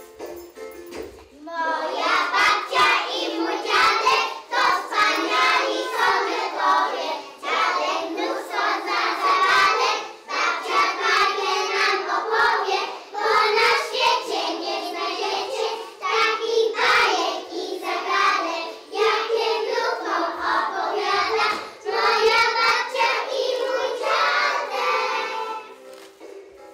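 A group of young children singing a song together in chorus, in phrases with short breaks. The singing starts about a second and a half in and tails off near the end.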